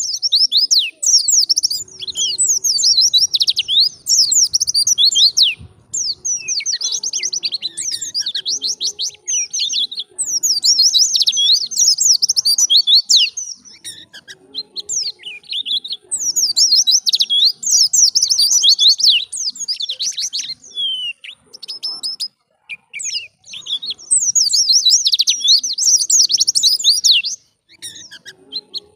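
White-eye (pleci) singing: long, fast twittering phrases of rapid high notes, coming in bursts of a few seconds with short pauses between them.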